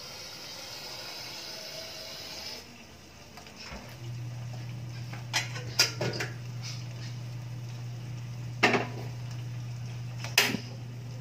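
Metal kitchenware clinking and knocking as it is handled: a quick cluster of strikes a little past halfway, then two more single knocks, the last near the end. Under them a steady hiss stops early on and is replaced by a steady low hum.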